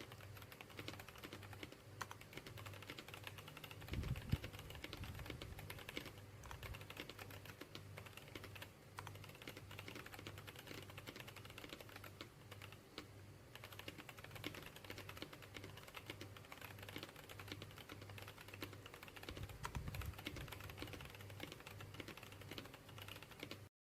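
Typing on a mechanical keyboard: a fast, irregular run of key clacks that stops suddenly near the end.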